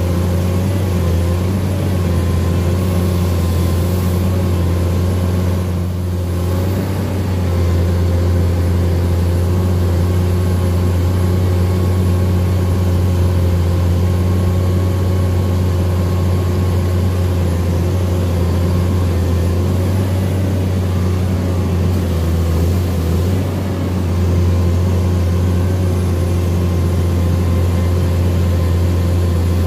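Komatsu excavator's diesel engine running hard and steady under heavy load as it drags a loaded land pontoon through deep mud, easing off briefly twice, about six seconds in and again near 23 seconds.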